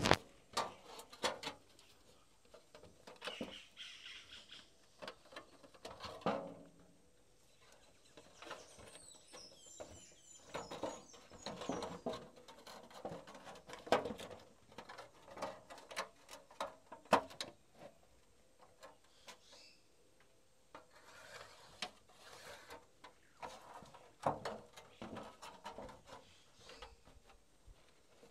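Scattered small clicks, scrapes and rustles of a steel tape measure and a pencil being worked over a thin aluminium sheet on wooden planks, one sharper click about 17 seconds in. A bird chirps briefly about nine seconds in.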